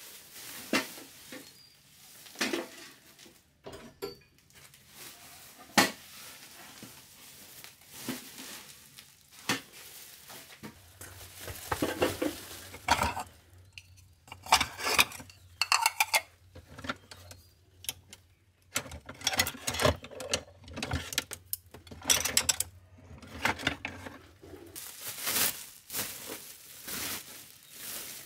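Dishes and utensils clinking and clattering in irregular knocks. Near the end a woven plastic sack rustles as it is handled.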